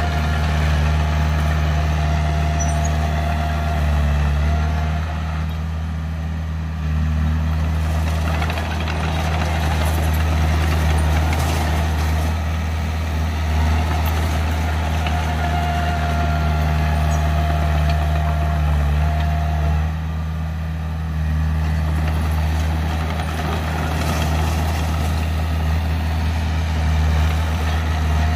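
Komatsu D20 crawler dozer's diesel engine running steadily under load while it pushes dirt, easing off briefly twice. A thin high whine comes through twice, near the start and about halfway.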